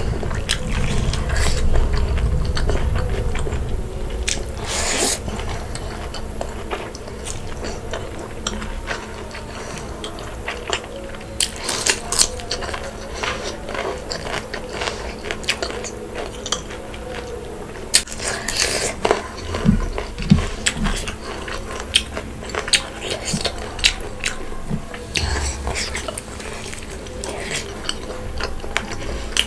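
Close-up eating sounds: biting and chewing pork curry, bamboo shoot and rice, with wet mouth clicks, crunches and occasional scrapes of utensils on a plate.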